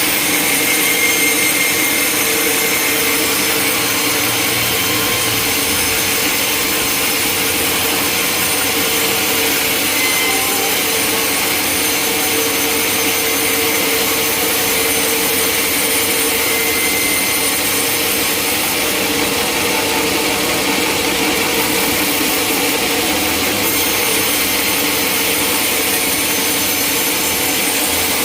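Sawmill saw running steadily through a log: a loud, even noise with a steady tone underneath.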